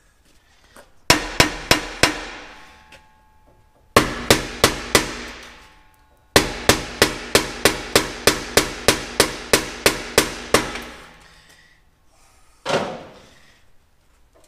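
Hammer beating on a seized truck exhaust pipe to free it. It comes in three runs of quick metal strikes, about four a second, with a ringing tone after each blow; the third run is the longest. One more knock falls near the end.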